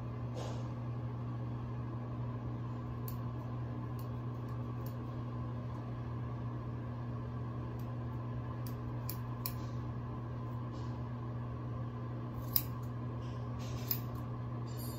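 Haircutting scissors snipping through wet hair: irregular, sharp snips, one every second or so, over a steady low hum.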